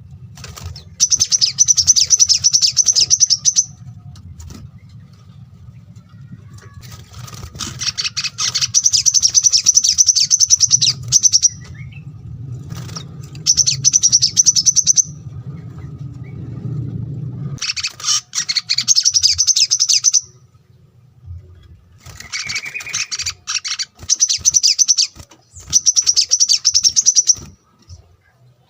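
Small songbirds singing fast, high-pitched chattering song in about six bouts of one to three seconds each, with short pauses between them. A low steady hum sits underneath and stops about two-thirds of the way through.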